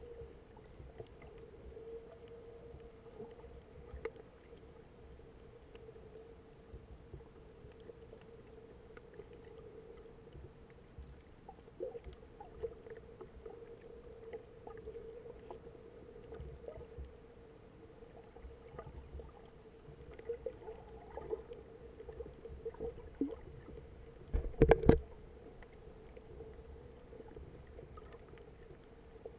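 Underwater sound picked up by a camera below the surface: a steady hum with faint scattered clicks and crackles, and one short loud knock and rumble near the end.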